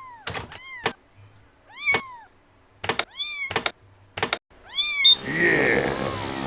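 A cat meowing four times, each a short rising-then-falling call, with sharp clicks in between. Music starts about five seconds in.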